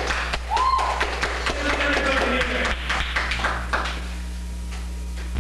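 Irregular clicks and taps over a steady low electrical hum. About half a second in, a single tone rises briefly and then slides slowly down. The taps die away a little before the end, leaving the hum and hiss.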